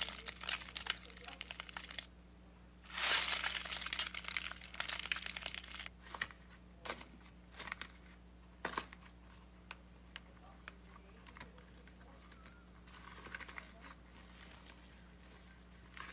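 Slime being squeezed and pressed by hand, making crackly, popping clicks. There are two dense bursts of crackling, one at the start and one from about three to six seconds in, then scattered single pops and a softer squish near the end.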